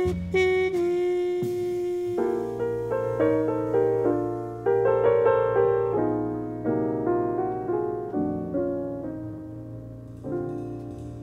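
Background music led by piano, playing chords and short phrases of struck notes that ring and fade, over a held low note.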